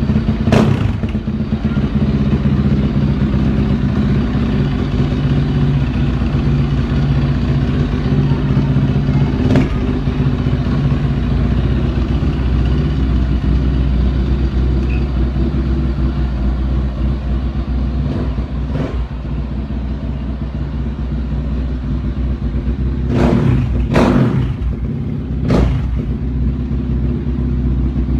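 Single-cylinder dirt bike engine idling steadily, with a few sharp knocks at intervals and a cluster of them near the end.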